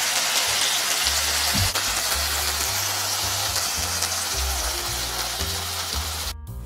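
Hot oil sizzling in a steady hiss over background music with a stepping bass line; the sizzle cuts off abruptly near the end.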